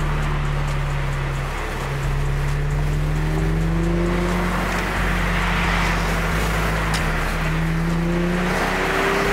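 Infiniti G37's VQ37 V6 engine droning as the car drives, heard from inside the cabin, its pitch rising slowly as the car gathers speed.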